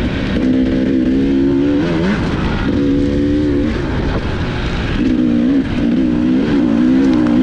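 Off-road motorcycle engine running under riding load, its note holding steady, then rising and falling with the throttle several times, over a steady rushing noise.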